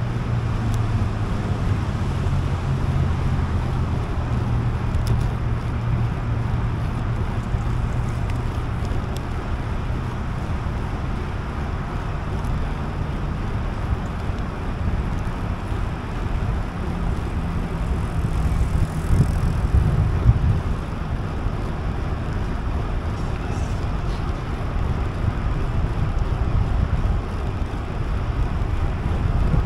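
Wind buffeting the microphone of a camera riding along on a bicycle: a steady low rumble with a hiss above it, swelling briefly about nineteen seconds in.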